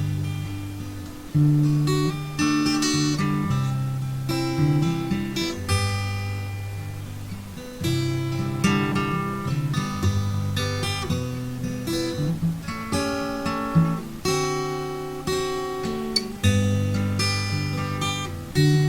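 Background music: acoustic guitar strumming and picking chords that ring out and fade.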